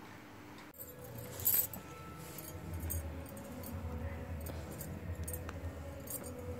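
Bangles on a woman's wrist clinking and jingling against each other in short irregular bursts as her arm moves, over a low steady hum.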